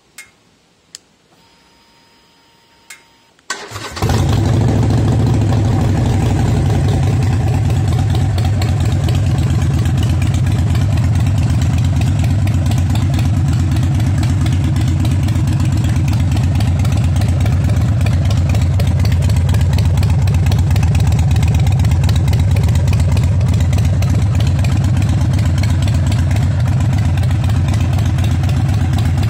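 A few clicks and a faint whine, then about three and a half seconds in the Harley-Davidson Sportster 883 Iron's air-cooled V-twin cranks, catches and settles into a steady idle. It breathes through a Roughcraft high-flow air filter and Vance & Hines Short Shots exhaust, with the idle tuned down to 900 rpm.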